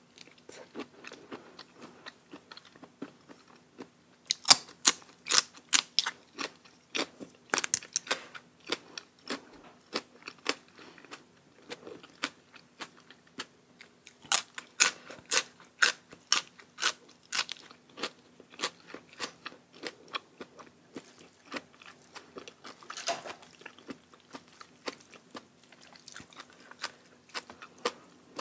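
Close-miked chewing of crisp raw vegetables, with sharp crunches bunched into bursts and quieter wet chewing between them.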